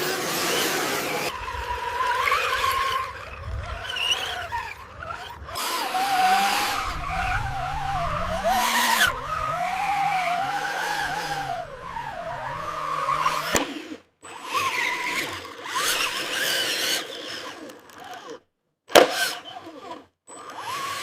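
Radio-controlled construction machines working: a noisy scraping mixed with motor whines that waver up and down in pitch, in short clips cut off abruptly one after another, with several hard breaks in the second half.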